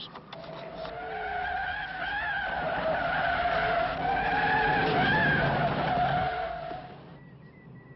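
Car tyres squealing in a long skid as the car is swung hard round, the screech wavering in pitch for about six seconds and cutting off near the end.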